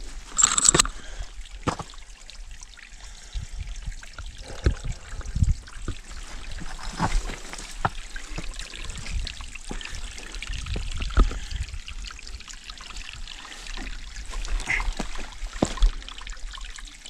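Boots knocking and scuffing on bare rock as a hiker scrambles up a steep granite slab and boulders: many irregular footfalls over a soft hiss, with a sharp scrape just after the start.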